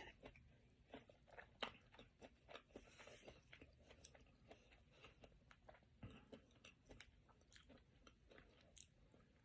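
Faint chewing of food: soft, irregular mouth clicks and smacks.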